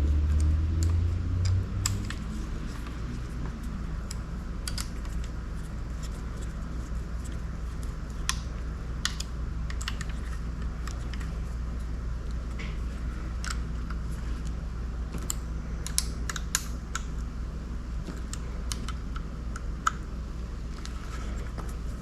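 Light, irregular clicks and taps of hand tools and small parts, such as screws, being handled on an outboard motor, over a steady low hum.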